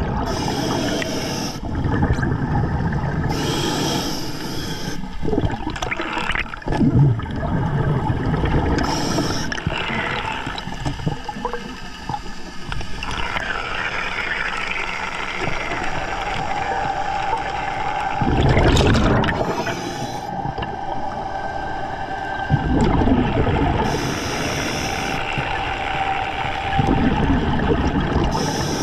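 Scuba diver breathing through an Atomic regulator underwater. Each inhalation through the regulator hisses, and each exhalation pushes out a bubbling rumble, repeating every few seconds.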